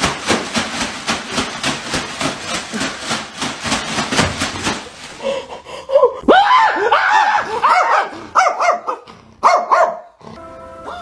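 A small dog barks in a rapid, even run, about four or five a second, while a plastic bag is shaken and rustled over it. About six seconds in this gives way to a few higher, gliding yelps and whines.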